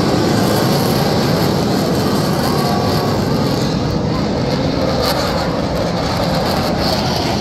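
Steady, loud jet noise from T-50B aerobatic jets flying overhead.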